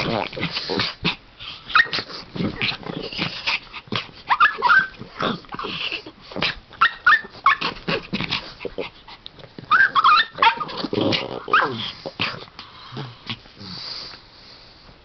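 Small dogs — a Pomeranian, a pug and a Shih Tzu — playfighting: short high whines and yips and low growls in irregular bursts, over scuffling and knocks of paws and jaws.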